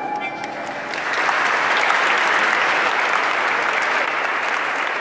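A crowd of people applauding, building up about a second in just as the last note of the music stops, then clapping steadily.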